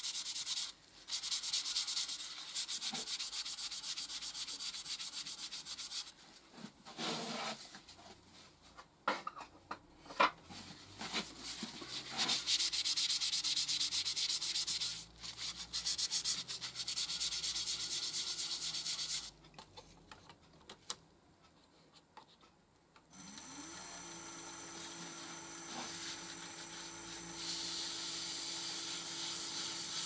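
A paper towel rubbing Yorkshire Grit abrasive paste onto a walnut pen blank turning on a wood lathe: a hissing rub in stretches with short breaks. About 23 seconds in, the lathe motor starts, its hum rising in pitch as it spins up, then runs steadily with a high whine.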